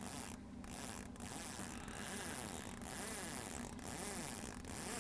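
Baitcasting reel being cranked in steady turns, about one a second, as a hooked lake trout is reeled in. The boat's motor hums steadily underneath.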